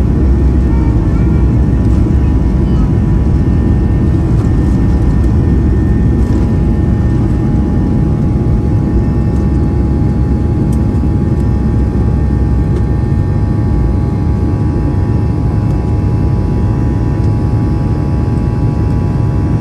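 Boeing 737 MAX airliner heard from inside the cabin: a steady loud rumble of engines and airflow with a few steady high tones over it, easing slightly in level partway through.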